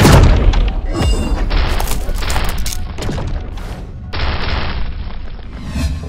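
Cartoon explosion sound effect: a loud boom as an energy-beam blast hits, followed by a rapid run of crashing impacts for about three seconds, then a steadier rumbling crash.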